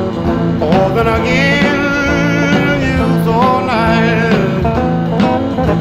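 Background music with a steady bass line and a wavering melody over a regular beat.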